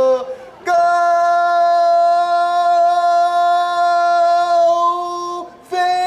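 A football commentator's drawn-out goal cry: after a short break for breath, one long shouted note held at a steady pitch for almost five seconds, then a brief second call near the end.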